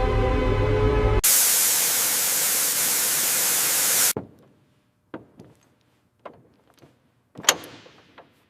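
Music cuts off about a second in to a loud, even hiss that lasts about three seconds and stops abruptly, followed by a few scattered clicks and knocks, the loudest near the end.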